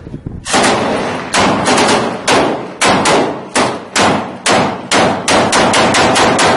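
Close gunfire aimed at a helicopter overhead: a long, loud string of heavy shots starting about half a second in, irregularly spaced at about three a second, each followed by a ringing echo.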